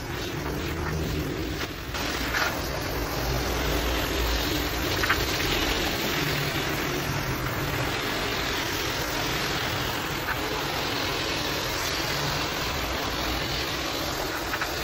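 Water jet from a hose spray wand rinsing soap foam out of a soaked shag rug: a steady rushing hiss of spray on wet pile, with a low hum underneath.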